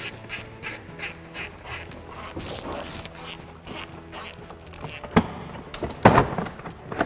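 Plastic lower front splash panel of a car being worked loose and pulled free by hand. Light clicking and handling sounds give way to two loud scraping knocks about five and six seconds in, over faint background music.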